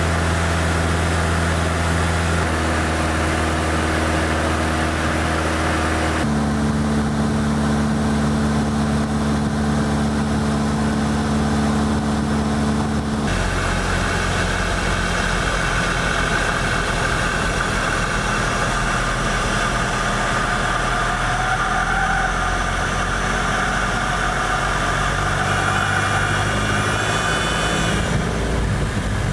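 Cessna 172 floatplane's piston engine and propeller droning steadily, heard from inside the cabin; the engine note jumps to a different pitch abruptly a few times, about two, six and thirteen seconds in and again near the end.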